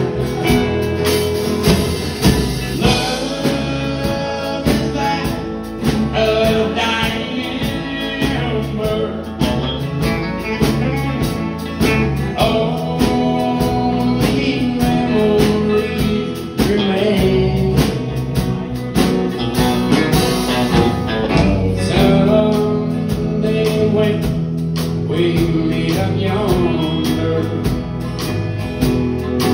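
Live country music: acoustic and electric guitars with a man singing through the PA.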